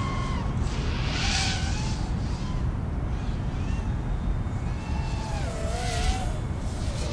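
Brushless motors of a 5-inch FPV racing quadcopter whining, their pitch rising and falling as the throttle changes, over heavy wind noise. Airy swells of hiss come about a second in and again about six seconds in.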